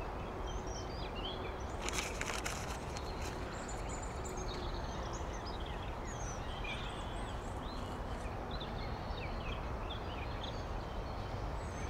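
Outdoor ambience: a steady background rush with small birds chirping and singing throughout. A brief rustle comes about two seconds in.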